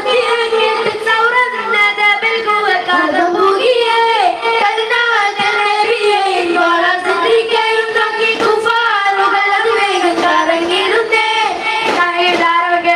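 Children singing a Mappila daff muttu song in a steady melodic chant, with occasional strikes on daf frame drums.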